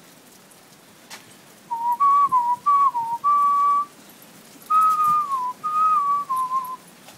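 A person whistling a short tune in two phrases, each about two seconds long, with the pitch stepping and sliding up and down.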